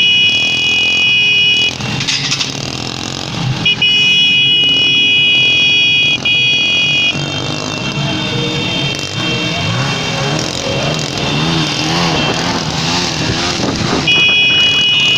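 Several vehicle horns sounding together in three long held blasts, over continuous engine and street noise from a moving convoy: celebratory honking of a wedding cortège.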